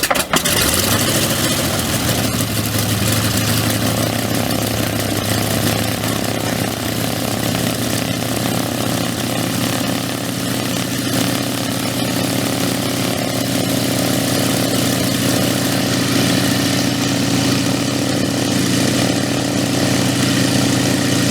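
An engine catches abruptly and then runs steadily and loudly.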